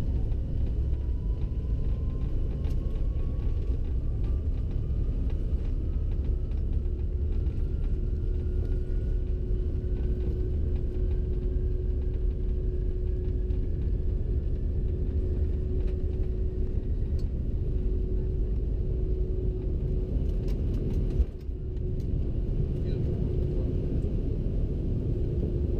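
Cabin noise of a CRJ-900 regional jet during its takeoff roll and initial climb: a steady, deep rumble, with a faint whine rising slowly in pitch over the first fifteen seconds or so as the aircraft speeds up. About 21 seconds in the rumble briefly drops with a click, then carries on.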